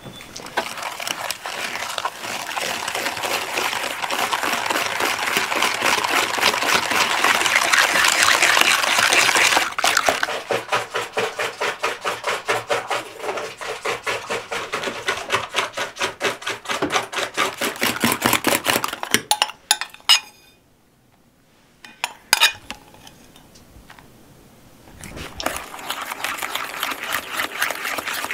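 A utensil working in a mixing bowl. A fast, even run of clicks for about ten seconds slows to spaced strokes, stops briefly after about twenty seconds, and picks up again near the end.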